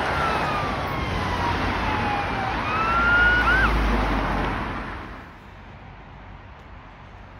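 Emergency vehicle siren wailing, its pitch falling slowly and then rising again with a short quick up-and-down, over loud traffic and engine rumble. About five seconds in the sound drops away to a quiet outdoor background.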